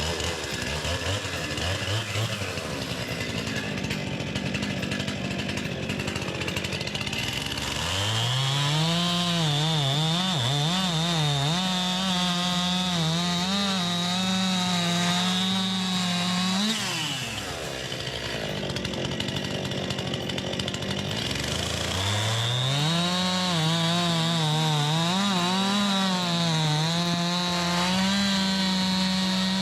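Stihl two-stroke chainsaw cutting sawmill slabs into firewood. It runs low for the first few seconds, then revs to full throttle about eight seconds in, its pitch wavering under load through a cut of about nine seconds. It falls back to idle, then revs up for a second cut that lasts to the end.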